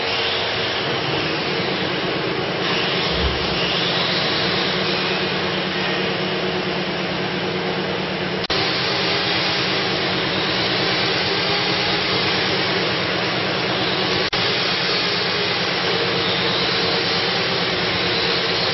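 Bottom-seal plastic bag making machine running: a loud, steady mechanical noise with a constant hum underneath.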